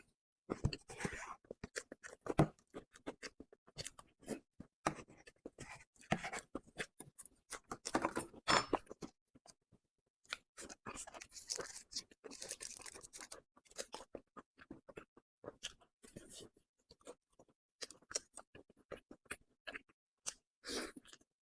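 Close-miked mouth sounds of eating soft cream cake: irregular wet, sticky chewing clicks and lip smacks that come in clusters with short pauses.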